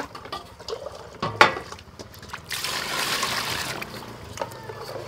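Water sloshing and trickling as hands handle boiled potatoes in a steel basin of water, with a sharp metal knock at the start and another about a second and a half in as the steel lid comes off the basin.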